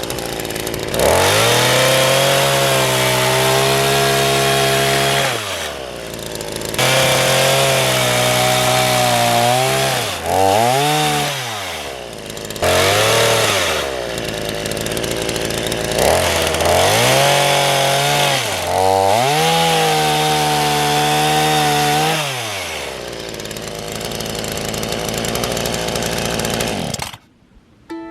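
A small engine is revved up repeatedly: each time it climbs from a low idle, holds at high speed for a few seconds with a rasping noise, then drops back. It cuts off sharply near the end.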